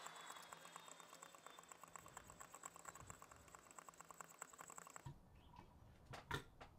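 Faint, quick ticking and scraping of 3000-grit stones on a Wicked Edge guided sharpener being swiped along a tanto knife's edge, stopping abruptly about five seconds in. A few light clicks follow near the end.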